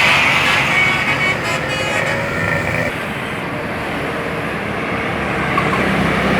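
A bus's multi-tone 'telolet' horn trailing off over the first three seconds, over steady road-traffic and engine noise that carries on after it.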